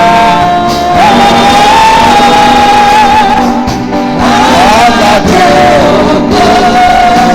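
Church praise music: a singer holds long, slightly wavering notes over instrumental backing, with a few sliding notes partway through.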